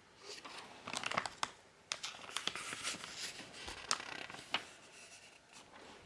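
Pages of a Lego instruction booklet being turned and handled: irregular papery rustling with a few sharp crinkles and snaps.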